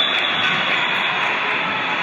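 Steady noisy din of a large tournament hall, with no single voice or impact standing out.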